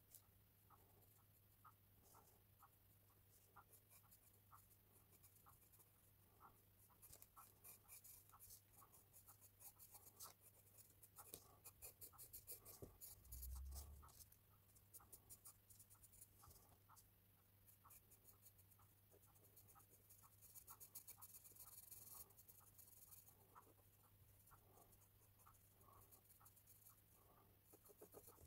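Carbon pencil scratching faintly on hot-pressed paper in short, quick strokes. The strokes grow denser and faster about a quarter of the way in and again about two-thirds in, with a single low bump near the middle.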